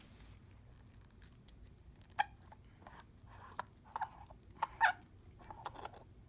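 Hands taking apart a small plastic LED table lamp: a series of short plastic clicks, taps and scrapes, irregular and fairly quiet, clustered in the second half.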